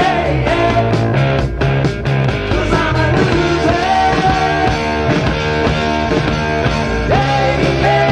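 1971 heavy blues-rock recording playing: a band with electric guitar, bass and drums at a steady beat, and a lead line of bent notes sliding up in pitch.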